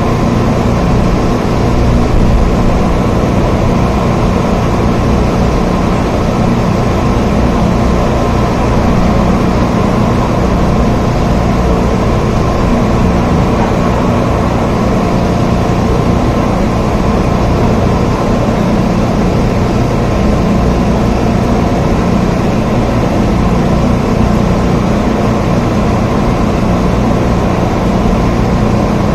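Steady rain, a dense, even rush weighted toward the low end, unchanging throughout.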